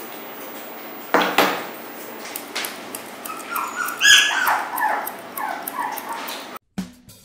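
A poodle whimpering and yipping in a run of short high whines, the loudest about four seconds in, over the sharp snips of grooming scissors cutting its coat.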